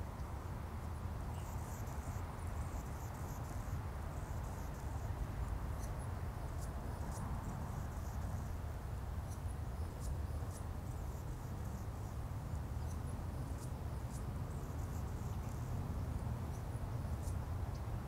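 Outdoor pond-side ambience: a steady low rumble with scattered faint, very high-pitched chirps and ticks above it.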